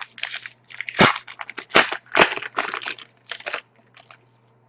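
Crinkling and tearing of a foil trading-card pack wrapper being ripped open and handled, in quick irregular rustles with a few sharper snaps about one and two seconds in.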